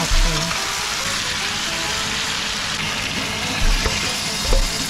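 Pieces of boiled pork leg sizzling steadily in a hot wok over a high gas flame, with a few dull knocks of handling. Near the end, the pineapple-juice marinade is poured into the pan.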